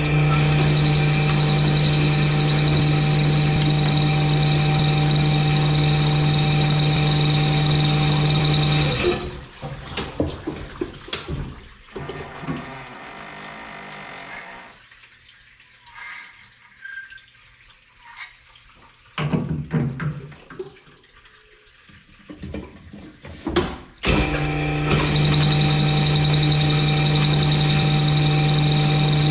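Cylinder honing machine running steadily with its stones stroking in an engine block's bore under honing oil: the rough-in stage with coarse stones. It stops about nine seconds in, leaving metallic clicks and knocks of handling at the block, and starts up again near the end.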